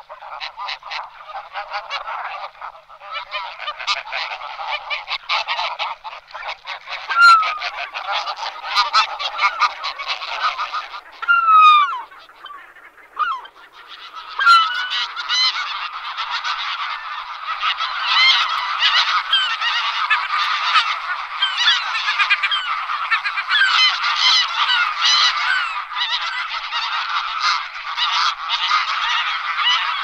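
A large flock of wild geese calling continuously: a dense chorus of many overlapping honks and yelps. A few louder single calls stand out in the first half, the flock thins briefly near the middle, then the chorus swells again.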